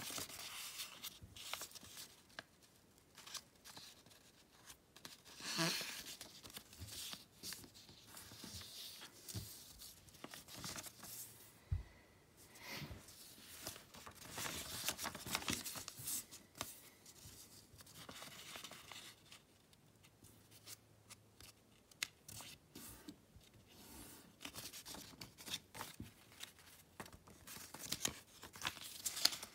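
A sheet of origami paper being folded by hand on a wooden tabletop: irregular crisp rustles, swishes and scrapes as the paper is turned, slid and pressed into creases, with one sharp knock about twelve seconds in.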